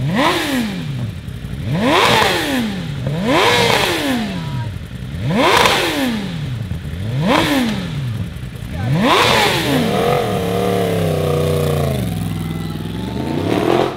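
Sport-bike inline-four engine revved in six quick blips, each climbing sharply and falling back to idle, then held at steady revs that sag and climb again near the end. It cuts off suddenly.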